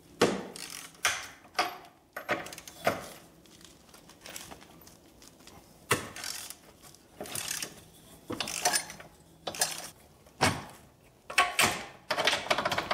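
Hand ratchet wrench clicking in short bursts of strokes, with a few sharp knocks, as the nut on the top of a front shock absorber is worked loose.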